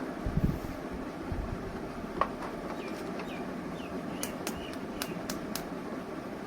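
Light handling noises over a steady hiss: two low thumps in the first second and a run of sharp, light clicks from about three to five and a half seconds in.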